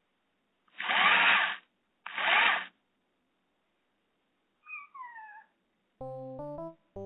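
Black-and-white domestic cat meowing: two loud, harsh yowls about one and two seconds in, then a softer meow falling in pitch about five seconds in. This is the cat crying after its owners have gone out. Background music with stepped tones starts near the end.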